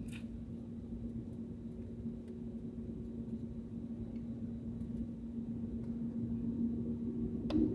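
Steady cabin drone of an airliner in flight: engine and airflow noise with a constant low hum, slowly growing louder, and a short click near the end.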